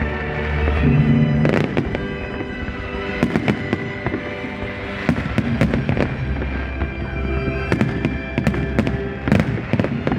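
Fireworks salute: irregular bangs of shells bursting overhead, several over a few seconds, over music with long sustained notes.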